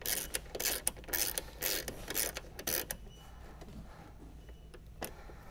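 Socket ratchet clicking as it snugs a 10 mm headlight mounting screw: a run of short ratchet strokes over the first three seconds, then one sharp click near the end.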